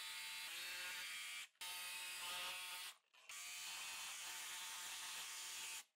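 Milwaukee Fuel cordless jigsaw cutting a laminate floor plank, a faint steady motor buzz that drops out briefly twice.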